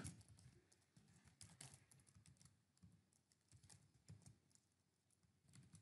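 Faint, irregular keystrokes on a computer keyboard as code is typed.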